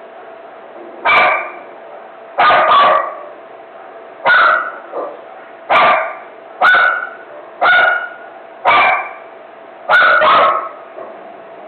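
A dog barking over and over in a frenzy: about ten short barks, roughly one a second, some coming in quick pairs.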